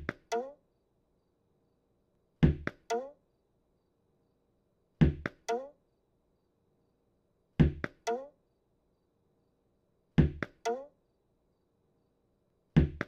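Cartoon sound effect of a tennis ball being thrown and bouncing: a sharp knock, then a second knock about half a second later. The pair repeats steadily about every two and a half seconds.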